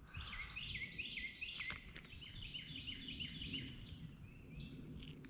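A bird singing a steady run of quick repeated notes, each sliding down in pitch, about three a second, over a faint low rumble.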